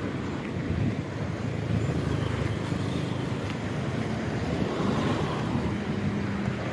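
Road traffic noise: vehicle engines running in slow, congested traffic, a steady low hum.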